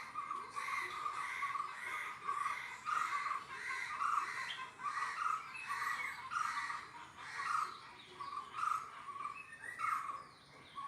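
A bird calling over and over, short chirping calls at about two a second.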